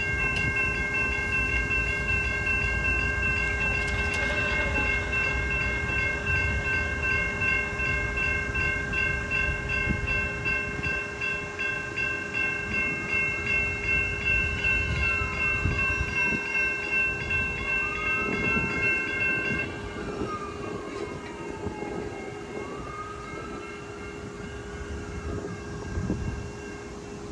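Railroad grade-crossing warning bell ringing steadily as the crossing activates and the gate arms lower, warning of an approaching train. It stops abruptly about twenty seconds in.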